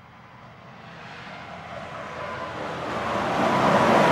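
Semi-trailer tanker truck approaching at highway speed, its engine and tyre noise growing steadily louder as it nears, with a steady whine running through it.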